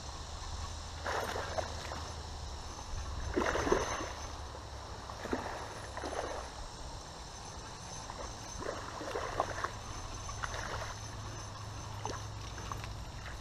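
A hooked largemouth bass thrashing and splashing at the water's surface as it is played in, in a string of irregular splashes, the biggest about three and a half seconds in.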